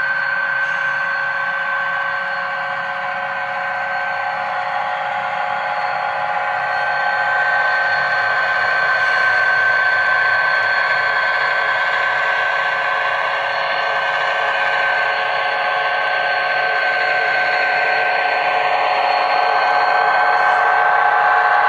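HO-scale model Union Pacific diesel locomotives' sound decoders playing diesel engine sound at full throttle (notch 8) through small onboard speakers: a steady, thin engine drone with no deep bass, swelling slightly as the units pass.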